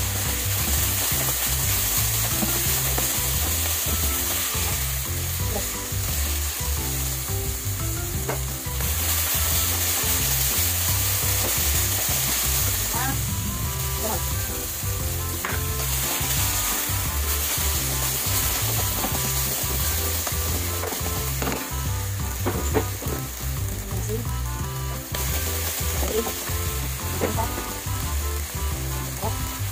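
Rice and tomato-sauce filling sizzling in a nonstick frying pan, stirred and scraped now and then with a wooden spoon.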